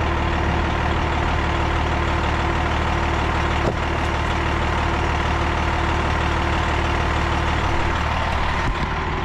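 Truck engine idling steadily, with a single sharp click about three and a half seconds in.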